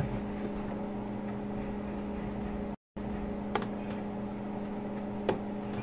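A steady low electrical hum, cut off completely for a moment a little before three seconds in, with two faint sharp clicks, the first about three and a half seconds in and the second near the end.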